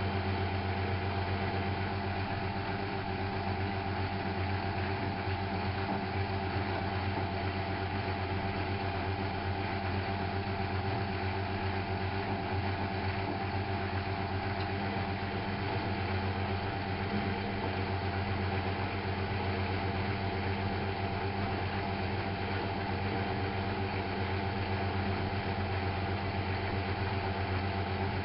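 Miele Novotronic W830 front-loading washing machine running, a steady machine hum that holds constant without pauses or changes.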